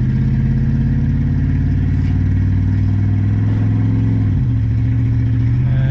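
1993 Chevrolet Caprice wagon's 305 TBI small-block V8 running while driving, a steady engine note that drops in pitch about four seconds in.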